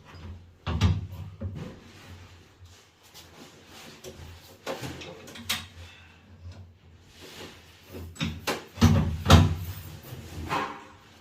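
Irregular knocks and clunks of hard objects being handled, a few scattered through, the loudest two close together near the end.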